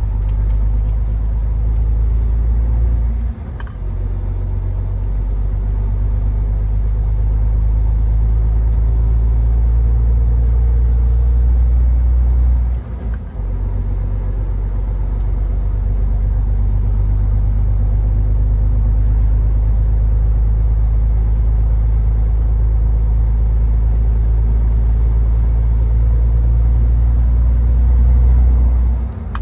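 Truck engine and road noise on a snowy road, a steady low rumble that drops briefly about three seconds in, again about thirteen seconds in, and once more just before the end.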